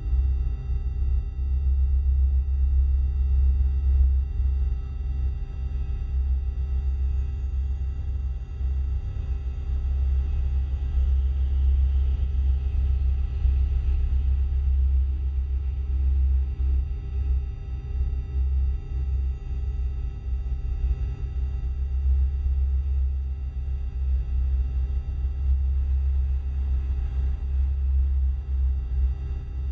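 Synthesized UFO hovering sound effect: a deep, unbroken rumbling drone that wavers in level, with faint steady high tones held above it.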